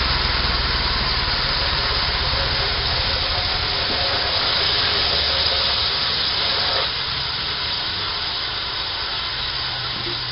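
Homemade band sawmill running, its small gasoline engine humming under a steady hiss of the blade in wood. The hiss and level ease slightly about seven seconds in, leaving the engine running with less load.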